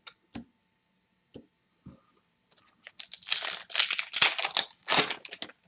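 A trading-card pack's shiny foil wrapper being torn open and crinkled by hand for about three seconds, after a few soft clicks of cards being handled.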